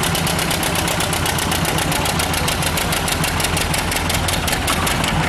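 John Deere Model R's two-cylinder diesel engine idling steadily, with an even beat of about seven to eight pulses a second.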